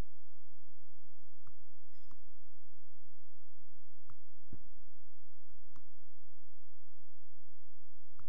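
Computer mouse clicking: about seven single clicks spaced irregularly, over a steady low electrical hum.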